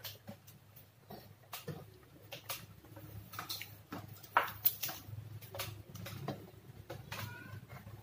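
Irregular small clicks, taps and rustles of hands handling multimeter test leads and cables on a workbench, over a low steady hum.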